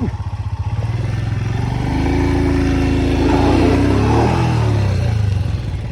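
Motorcycle engine running, then revved under throttle about two seconds in, its pitch rising and then dropping back a little before the end.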